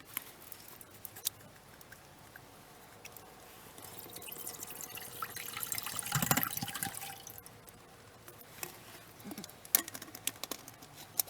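Water being poured into a pan, swelling to its loudest about six seconds in and then tapering off, with a few small clicks.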